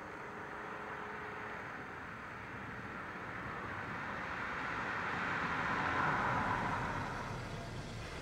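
A car approaching along a wet road and passing close by, its tyre hiss growing louder to a peak about six seconds in, then easing slightly.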